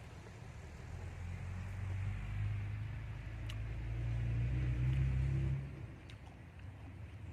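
A motor's low drone grows louder over a few seconds, then drops away about five and a half seconds in, like an engine vehicle passing close by. A couple of faint clicks sit over it.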